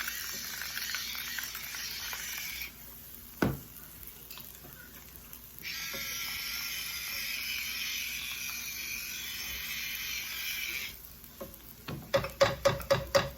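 Salt and pepper being added to a pan sauce on the stove: two stretches of steady hiss that start and stop abruptly, a single knock a few seconds in, and a quick run of clicks near the end.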